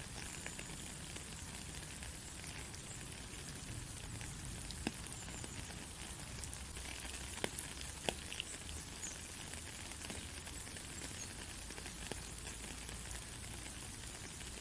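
Steady rain falling on a country road: an even hiss with a few sharp, louder drop hits, most clearly around five and eight seconds in.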